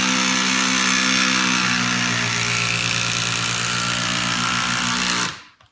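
Milwaukee M18 Fuel Surge hydraulic impulse driver driving a 6-inch ledger lock screw into stacked lumber. It gives a loud, steady buzzing hum rather than sharp hammering clicks, and cuts off abruptly about five seconds in as the screw is driven home.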